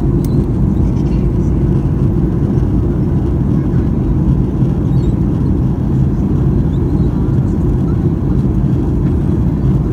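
Steady in-flight cabin noise of a Boeing 737-800 heard from a window seat over the wing: a low, even rumble of the CFM56 engines and the airflow, unchanged throughout.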